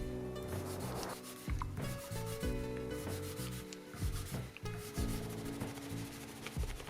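A cloth rag rubbing lemon oil into an ebony guitar fretboard in repeated strokes, with soft background music underneath.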